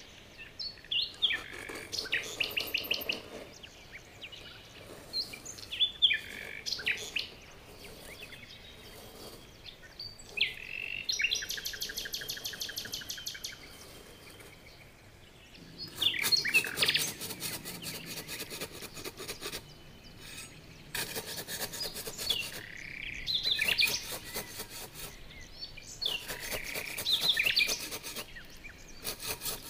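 Small hand tools, a screwdriver tip and a small trowel, scraping and cutting grooves into sand in short bursts. Birds chirp in the background.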